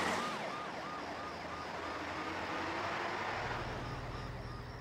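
Ambulance siren yelping in fast rise-and-fall cycles, fading as the ambulance drives away, over a low engine and road rumble that also dies down near the end.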